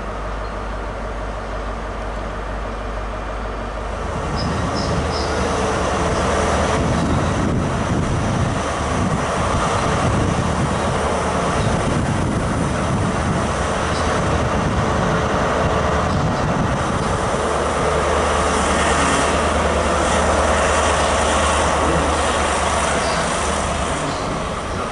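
Class 43 HST power car passing close by, its diesel engine running loud over the rumble of wheels on rail. The sound swells about four seconds in and eases off near the end.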